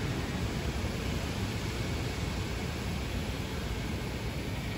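Steady rushing, rumbling noise from the camera riding on the implement towed by an RC model Fendt 1050 tractor as it rolls over sandy ground, with no clear motor tone.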